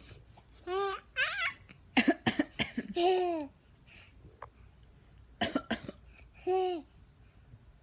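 A baby imitating a cough: two short clusters of coughs, with short single voiced sounds and laughter between them.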